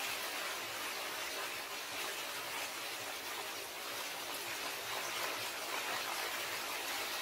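Steady rain falling, an even hiss with no distinct drops or knocks standing out.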